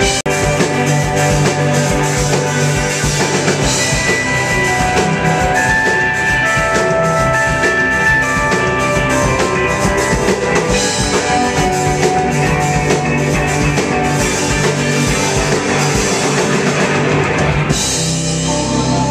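Live rock band playing an instrumental passage: drum kit, electric guitars and bass with keyboard and cello. The drums drop out near the end, leaving held chords ringing.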